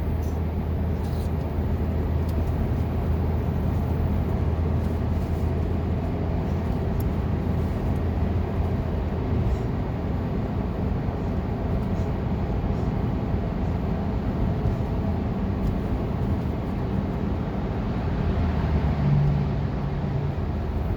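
Steady low rumble of a car's engine and road noise heard from inside the cabin while crawling in traffic, with a brief louder hum near the end.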